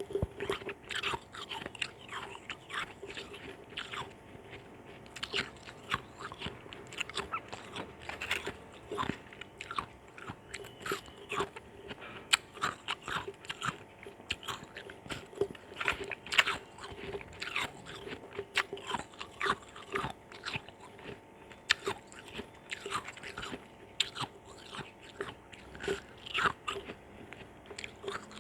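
Ice chunks soaked in orange juice being bitten and chewed close to the microphone: a steady run of sharp, irregular crunches and cracks, several a second.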